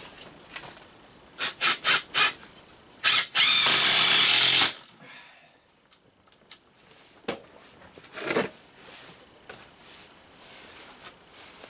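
Cordless drill driving screws into a wooden frame. There are several short trigger bursts about a second and a half in, then one longer run with a wavering whine lasting over a second before it stops suddenly.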